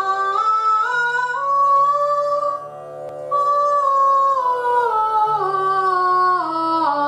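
A singing voice steps up a few notes on a vowel, breaks off briefly about three seconds in, then steps back down over the same notes, over a steady drone: an up-and-down exercise across the break between chest and head voice.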